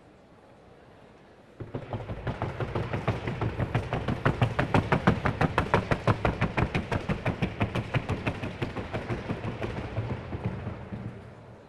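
Hooves of a Colombian Paso mare in the trocha gait striking a wooden sounding board: a rapid, even clatter of hoofbeats that starts abruptly about a second and a half in, grows louder toward the middle and fades near the end.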